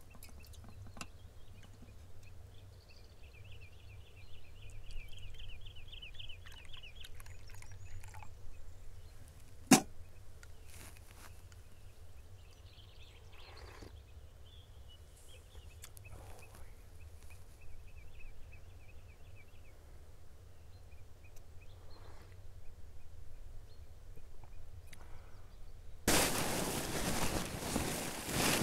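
Quiet forest ambience with a small bird's rapid, high trilling song heard twice. There is one sharp click about ten seconds in, and loud, close rustling starts near the end.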